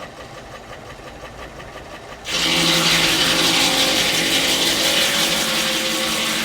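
Steam-powered sawmill's circular saw running, then biting into a log a little over two seconds in: a sudden jump to a loud, steady cutting noise with a hum from the blade.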